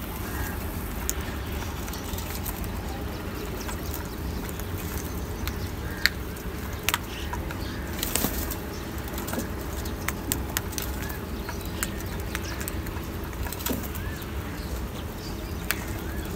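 House crows pecking grain from a plastic bowl: sharp, irregular clicks of beaks on the bowl and grain, with a brief flurry of wing flaps about eight seconds in, over a steady low background rumble.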